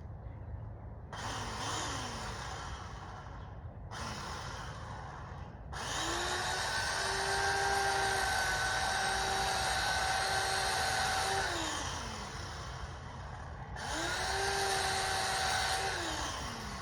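Corded electric chainsaw run in several bursts while cutting into a tree: the motor whines up to speed, holds a steady pitch, then winds down. The longest run lasts about seven seconds in the middle, and a shorter one comes near the end.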